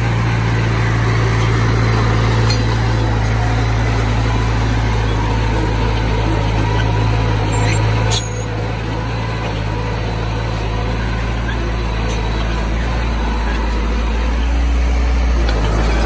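Small crawler bulldozer's diesel engine running steadily as it pushes a pile of soil. The engine sound drops a little about halfway through and builds again near the end.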